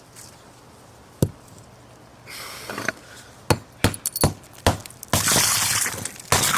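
Balloons being popped: a single sharp pop about a second in, then a quick run of four pops a little later, and another pop near the end. Between the pops come stretches of rough noise, the louder one just before the last pop.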